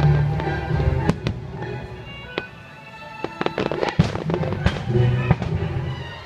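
Aerial fireworks exploding in rapid sharp bangs and crackles over show music on loudspeakers. The bangs ease off briefly partway through, then come back in a second volley.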